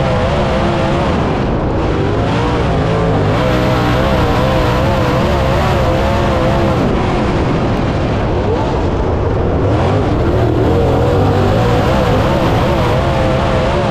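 Dirt late model race car's V8 engine running hard at racing speed, its note wavering up and down continuously as the throttle is worked.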